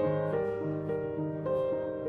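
Background piano music: a calm melody of sustained notes that change at an even pace, about two a second.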